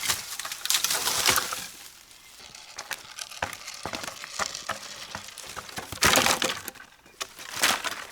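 Firewood being prepared by hand: saw strokes through wood for the first couple of seconds, then scattered knocks and clicks, with two short crunching bursts near the end as wood is broken up.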